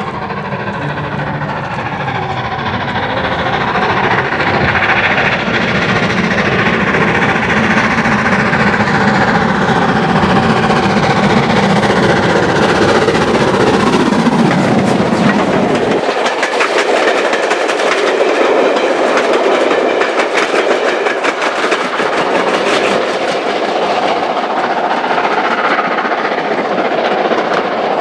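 LMS 8F 2-8-0 steam locomotive No. 48624 working a train through, loud and growing louder as it approaches and passes close by. In the second half the coaches' wheels clatter past in a dense run of clicks over the rail joints.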